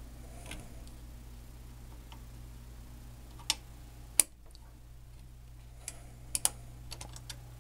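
Scattered sharp clicks and taps of thin wire leads and fingers against the contact pads on an old RCA television's front control panel, the loudest about four seconds in and a quick cluster near the end, over a steady low hum.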